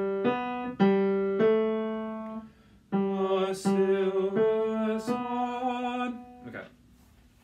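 Piano notes played one at a time, picking out a short melody line to find the right notes after a wrong one. In the second phrase a voice sings along with the piano, and the notes stop about six seconds in.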